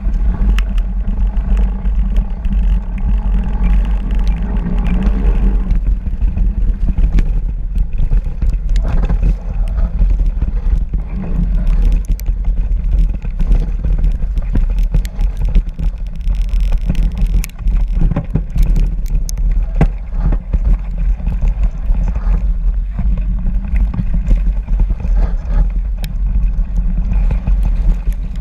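Wind and riding rumble on a bike-mounted action camera as a mountain bike descends a snowy trail, with frequent small clicks and knocks from the bike.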